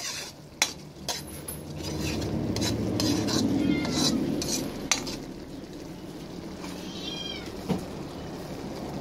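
Spoon stirring quail eggs in a simmering sauce in a pan, with a few sharp clinks against the pan and a bubbling sizzle that swells in the middle. A cat meows once, briefly, near the end.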